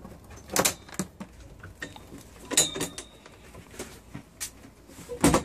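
Several sharp knocks and clicks from a fold-down wall table and its metal support bracket being worked, one about two and a half seconds in with a brief metallic ring.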